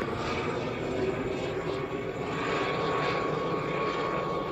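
Helicopter flying overhead with twin rotor blades: a steady rotor and engine drone with a thin, steady whine above it.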